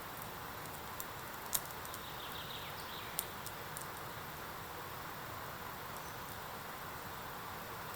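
Steady forest background hiss with a few sharp clicks, the loudest about one and a half seconds in.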